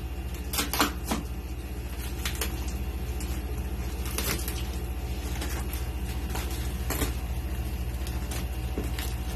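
Cardboard box and plastic packaging being handled and pulled apart: scattered rustles and knocks over a steady low hum.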